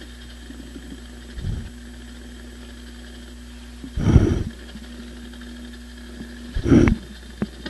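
Steady electrical hum from a homemade laser-interferometer receiver's amplifier and speaker, broken three times by short low thumps a couple of seconds apart.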